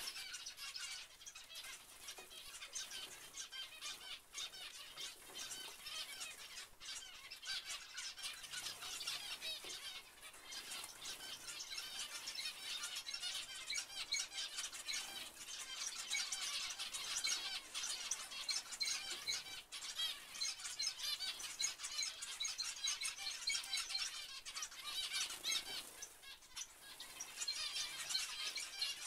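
A flock of zebra finches calling: many short, high chirps overlapping in a continuous chatter, a little louder in the second half.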